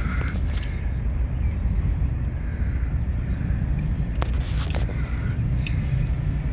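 CSX intermodal freight train rolling by: a steady low rumble, with a few sharp clicks and clanks about four to six seconds in.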